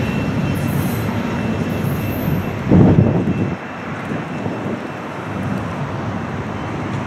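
Double-stack intermodal freight train rolling by as its last cars pass, a steady rumble of wheels on rail. A brief louder rush about three seconds in, after which the sound drops and stays lower.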